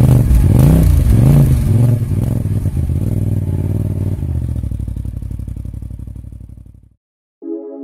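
Side-by-side UTV engine revving up and down a few times, then running at a steady idle that fades away about seven seconds in. A held musical chord begins just before the end.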